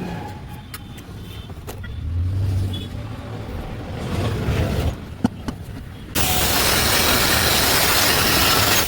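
A few metallic clicks and a low rumble, then about six seconds in a loud, steady crackling hiss starts suddenly, typical of an arc being struck on steel pipe during welding.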